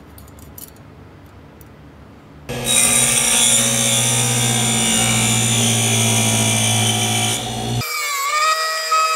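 A mini benchtop table saw starts after a few seconds of quiet and runs steadily with a low hum. Near the end it cuts into a PVC sheet, and its whine wavers and dips in pitch as the blade bites.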